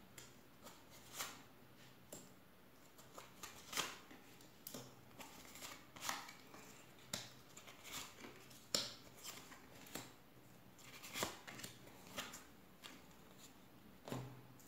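Tarot cards being dealt from the deck and laid down on a wooden tabletop: a string of faint, irregular card slaps and swishes.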